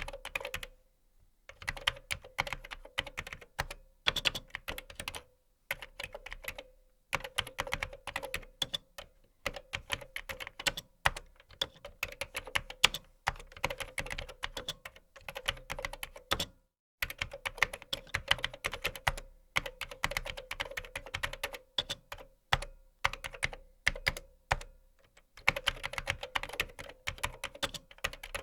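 Typing on a computer keyboard: quick runs of keystroke clicks broken every few seconds by short pauses.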